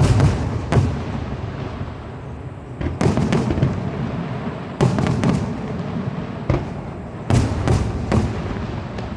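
Fireworks shells bursting overhead, a string of sharp booms in uneven clusters, each trailing off in a rolling echo.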